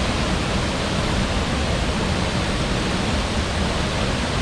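Steady, even rush of Looking Glass Falls pouring down, heard close to its base.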